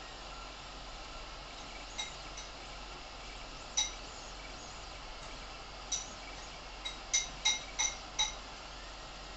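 Creality Ender 3 3D printer running mid-print: a steady hum of its fans and motors, broken by short, high metallic pings, a couple early on and a quick run of them in the last few seconds.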